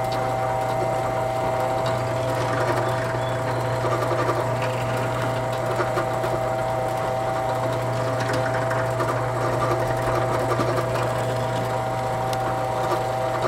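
Drill press motor running with a steady hum while a number 6 countersink bit drills screw holes in wooden end pieces.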